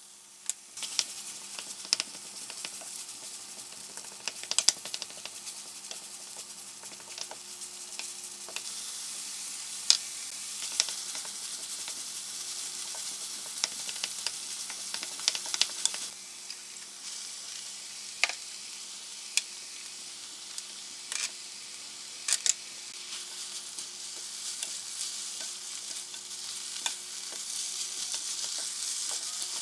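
Ground pork frying in oil in a nonstick wok, sizzling steadily while a wooden spatula stirs it, with frequent sharp scrapes and taps of the spatula on the pan. The sizzle grows louder about a second in.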